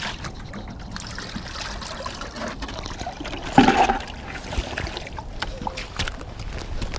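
Jacket fabric rubbing and scuffing against a body-worn action camera, with footsteps, while the wearer moves along the wet edge of a river. There is a loud scuff a little over three and a half seconds in.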